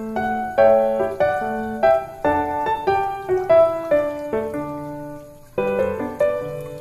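Background music: a light keyboard tune in piano tone, a few notes a second, dipping briefly about five seconds in before picking up again.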